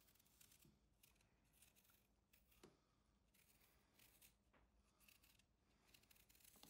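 Faint, irregular scraping of a small kitchen knife peeling the skin off an apple quarter, in a series of short, crisp strokes.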